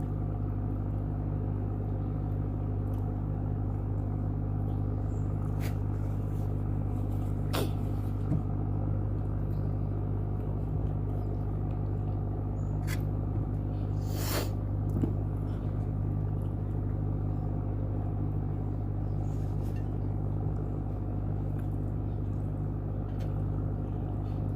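Steady low mechanical hum, even and unchanging, with a few short sharp clicks over it.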